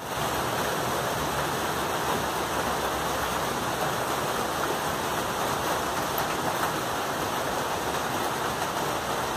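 Steady rain falling on tree foliage, an even, unbroken hiss.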